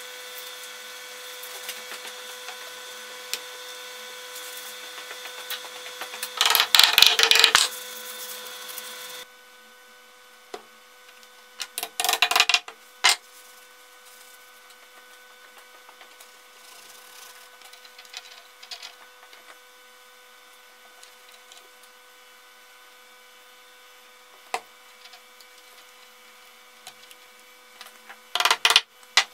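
Three short bursts of rubbing and scraping from hand work on a wooden beam, over a steady background hum that drops away about nine seconds in. There is also a single click near the end.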